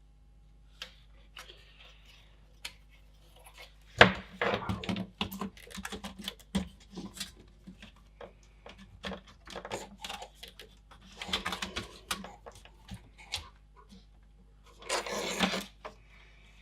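Small plastic parts and wires being handled at a workbench: irregular clicks, taps and rattles, starting with a sharp knock about four seconds in, and a short scraping rub near the end.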